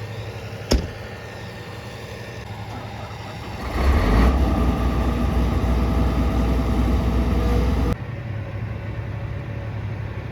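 Farm machinery engine running steadily, with a sharp click under a second in. The engine sound gets louder and deeper about four seconds in, then drops abruptly near the end.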